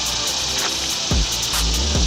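Background music with a beat: deep bass drum hits that drop sharply in pitch over a held bass line, with a steady high hiss above.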